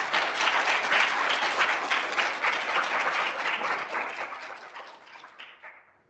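Audience applauding: a dense run of many hands clapping that fades over the last couple of seconds and then cuts off abruptly.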